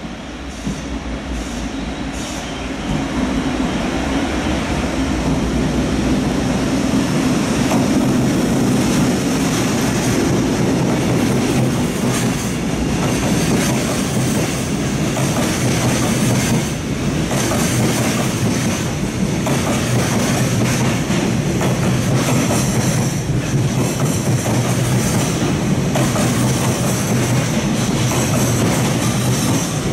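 Container freight train passing close by at a station. The sound grows louder over the first three seconds as the locomotive draws near, then the loaded container wagons roll past with a steady rumble and the clacking of wheels over rail joints.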